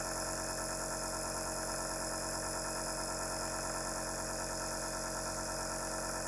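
Ambitech portable compressor nebulizer running steadily, its compressor motor giving an even mechanical hum with a constant pitch.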